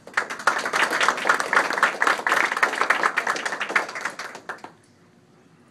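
A small audience clapping, starting suddenly and dying away after about four and a half seconds.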